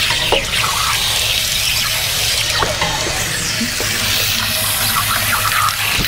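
Hose water spraying from a tank-rinser wand inside a 10-gallon Suburban RV water heater, gushing and splashing out of the anode-rod opening onto the ground: a steady rush of water. It is flushing loose sediment out of the tank.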